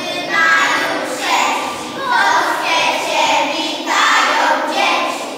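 A group of children singing together in unison, in short phrases of about a second each with brief breaks between.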